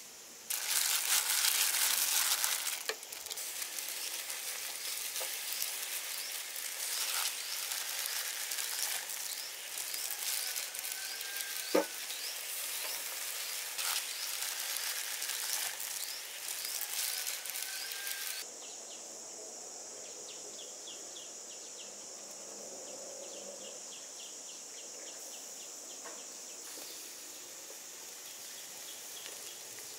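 Shrimp with a garlic, lemon-leaf and chili topping sizzling on a hot grill grate, loudest just after the topping goes on, with crackles and one sharp pop about twelve seconds in. After about eighteen seconds the sizzle drops abruptly to a quieter, steady high hiss.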